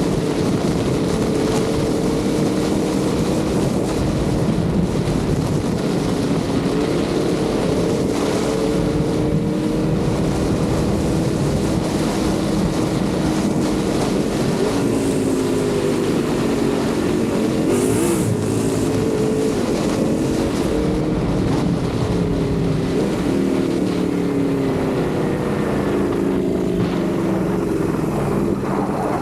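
Ducati Panigale V4 sportbike's V4 engine running at moderate, fairly steady revs while riding, its pitch drifting gently up and down, with wind rushing past the microphone.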